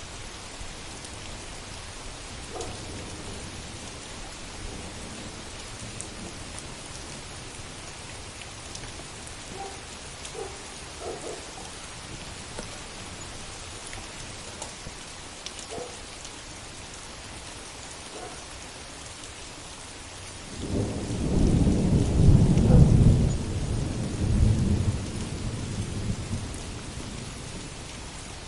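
Heavy rain falling steadily. About two-thirds of the way in, a loud, deep roll of thunder breaks out, peaks a couple of seconds later, and rumbles away over several seconds.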